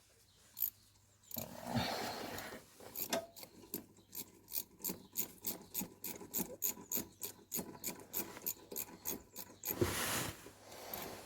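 Hand ratchet clicking in a steady run, about four clicks a second, as a fitting on the turbo pipework is tightened. A short rustling burst near the end.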